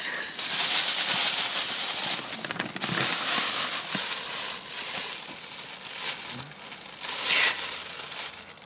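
Crinkly silver and gold foil wrapping crumpling and rustling as a hand moves it, in several bursts, the longest near the start and a short, loud one later on.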